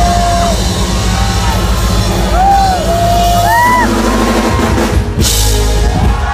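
Live band music with a drum kit, recorded from the audience, with high voices gliding up and down over it and a crash about five seconds in. The band's low end drops away just before the end.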